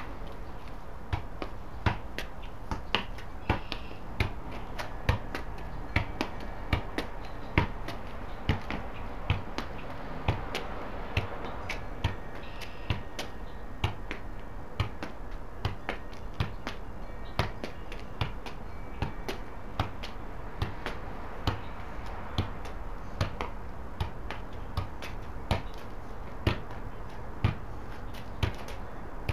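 Soccer ball being juggled: a steady run of short, sharp taps as the ball is kicked back up off the player's feet and body, roughly one to two touches a second.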